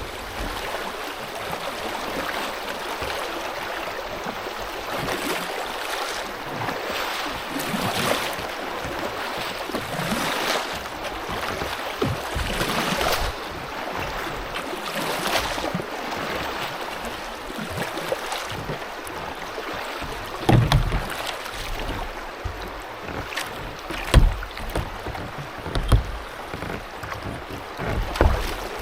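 Steady rush of river water running over rocky shoals, swelling every couple of seconds, with a few dull knocks in the second half.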